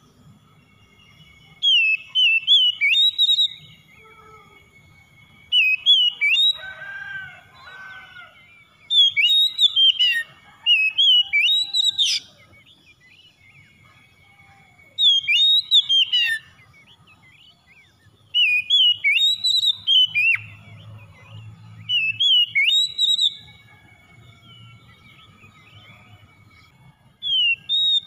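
Oriental magpie-robin (kacer) singing: loud, varied whistled phrases of quickly rising and falling notes, given in bursts of one to three seconds with pauses of a few seconds between.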